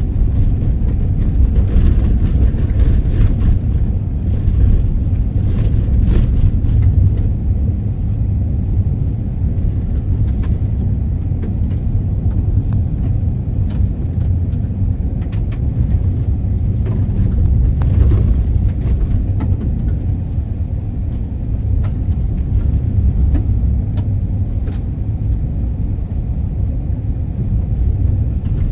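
Steady low rumble of a moving vehicle heard from inside the cabin: road and engine noise, with scattered small clicks and knocks, more frequent in the first several seconds.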